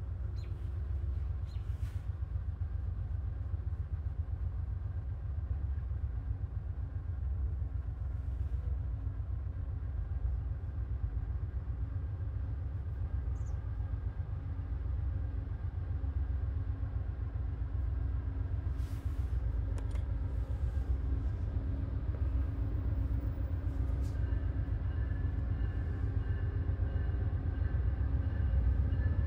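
Distant diesel passenger train approaching, led by a GE P42DC locomotive: a steady low rumble that slowly grows louder, with faint steady whine tones coming in during the last few seconds.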